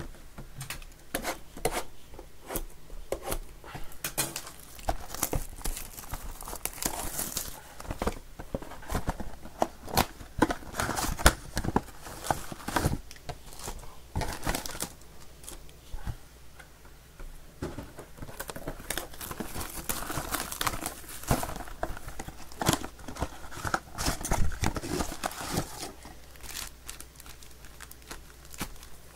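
Plastic shrink wrap being torn off Panini Mosaic mega boxes and crumpled, with the cardboard boxes and foil card packs handled: an irregular run of crinkling, tearing and crackling.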